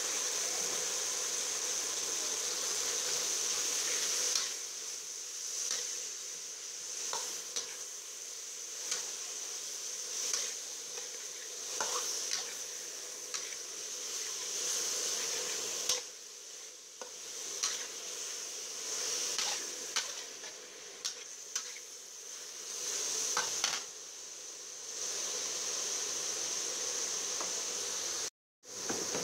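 Chopped meat and garlic sizzling in a steel wok, with a metal spatula scraping and clicking against the pan as it is stirred. The sound cuts out briefly near the end.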